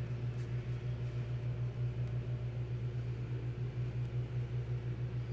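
A steady low mechanical hum, even and unbroken, with nothing sudden in it.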